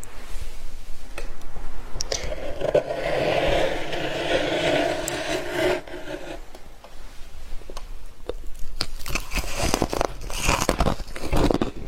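Freezer frost being scraped with a steady rasp for a few seconds, then crunched and chewed in quick, crackly bites near the end.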